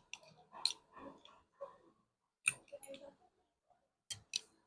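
Faint, light clicking and clinking of utensils against dishes as food is handled, a few sharp clicks scattered through, some in quick pairs.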